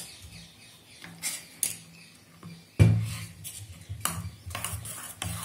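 Metal spoon stirring water in a stainless steel tumbler, clinking against the sides several times, with the loudest clank about three seconds in.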